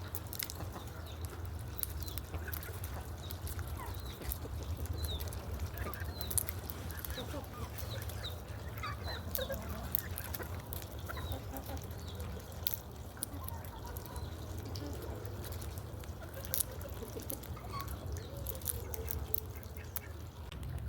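Poultry calling: many short scattered calls over a steady low rumble, with occasional sharp clicks.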